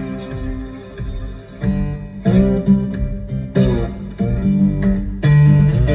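Acoustic blues guitar playing an instrumental passage between sung verses, several notes sliding up in pitch over a heavy bass line, played through a pickup truck's aftermarket car audio system with subwoofer and heard inside the cab.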